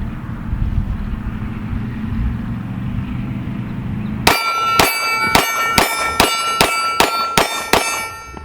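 Glock 20 10mm pistol firing a fast string of about ten shots, two to three a second, starting about four seconds in; each shot is followed by a ringing clang, typical of rounds striking a steel target.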